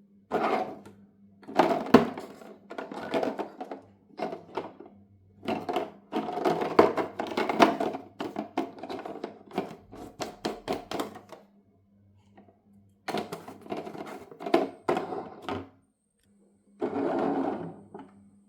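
Marbles rolling and clattering down a wooden marble run: runs of rattling with sharp clicks as they knock along and drop between track pieces, broken by short pauses.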